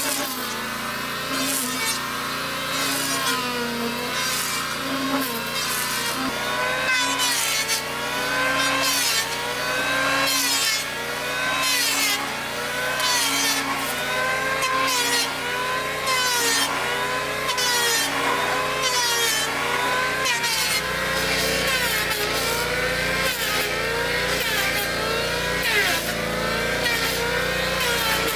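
Electric hand planer shaving bark and wood off a log in repeated passes: the motor's whine sags in pitch as each pass bites and recovers between passes, about every second and a half. About twenty seconds in, a deeper steady hum joins, as a second planer runs at the same time.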